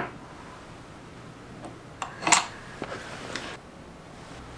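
Light handling noises of a small metal jig piece against an electric planer's base: a few small clicks, the loudest a brief metallic clink a little over two seconds in.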